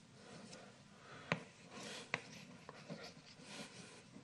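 Chalk writing on a blackboard: faint scratching strokes, with two sharp taps of the chalk, about a second in and about two seconds in.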